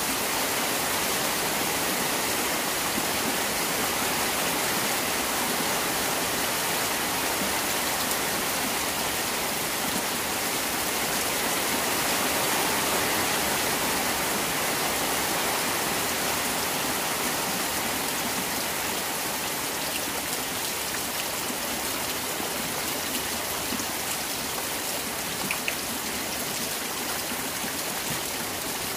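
Heavy rain falling steadily on shallow concrete fish ponds, a dense, even hiss of drops hitting water, easing slightly in the second half.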